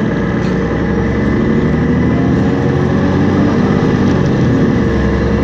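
MAN NL223 city bus's diesel engine and Voith DIWA three-speed automatic gearbox pulling the bus along at a steady pace, heard from inside the passenger cabin. A loud, even engine drone with a low rumble underneath.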